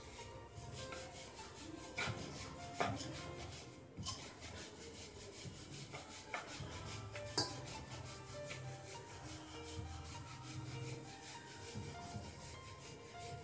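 Wooden rolling pin rolling and rubbing over dough on a wooden board (chakla), with a few sharp knocks of wood on wood, the loudest about three and seven seconds in.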